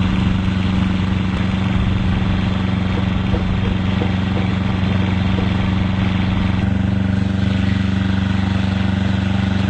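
A small engine running steadily at an even pitch, a constant low hum with no revving.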